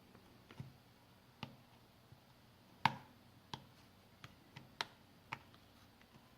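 A series of about nine sharp, irregular plastic clicks and taps, the loudest about three seconds in, as the snap-in clips of a Samsung Galaxy S5's plastic midframe are pried and popped loose.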